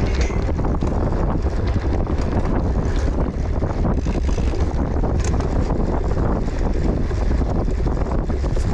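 Heavy wind buffeting on the microphone, a dense low rumble, with many small knocks and rattles throughout and a sharper knock about five seconds in, typical of a cyclocross bike being raced over rough ground.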